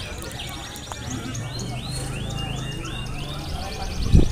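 Several caged songbirds singing at once: quick repeated chirps and rattling trills overlapping one another. A short loud low thump comes near the end.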